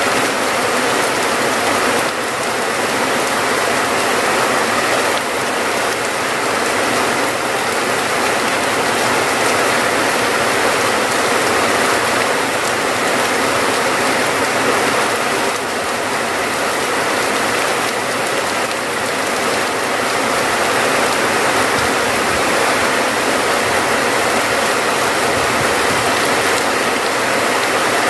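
Steady heavy rain: a dense, even hiss of falling rain that holds at one level throughout.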